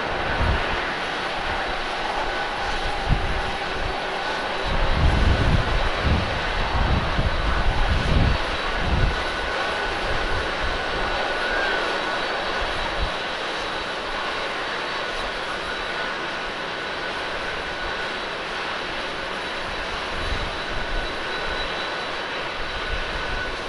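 Boeing 747-8 airliner's four GEnx jet engines running at taxi power: a steady rush of jet noise with a thin high whine. There are heavier low rumbles for a few seconds starting about five seconds in.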